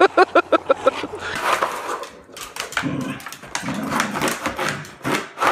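A dog giving a quick run of short yips, about seven a second, which stop about a second in. Rougher, noisier sounds with irregular clicks follow.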